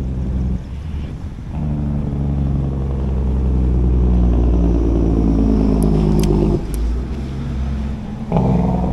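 Truck on a nearby road running on its engine brakes: a loud, deep engine drone made of several steady tones. It swells about a second and a half in with its pitch easing slowly down, drops away briefly about two-thirds through, and surges back near the end.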